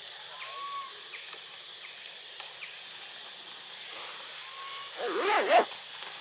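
A brief raspy animal call with wavering pitch, a little after five seconds in. Under it runs a steady background hiss with a thin high steady tone, and there are two short soft chirps earlier.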